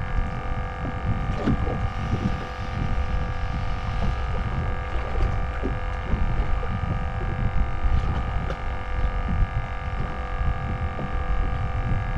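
A steady hum made of several fixed pitches, over a low rumbling noise, with scattered light knocks.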